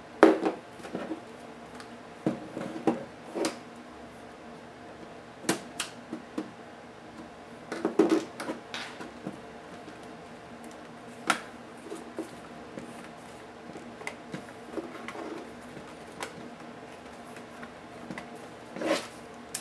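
Plastic case of an Acer Aspire One netbook being pried and lifted apart by hand: irregular clicks and knocks of snap clips releasing and parts touching the bench, over a faint steady hum.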